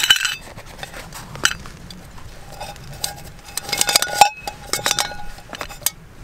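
Metal camping cook pot and stove parts clinking and knocking together as the cook kit is unpacked from its mesh stuff sack, with a cluster of rattling clinks about four seconds in.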